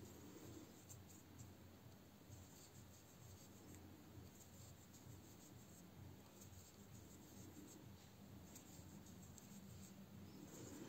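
Faint scratching and rustling of a metal crochet hook drawing yarn through stitches as single crochets are worked, over a faint steady low hum.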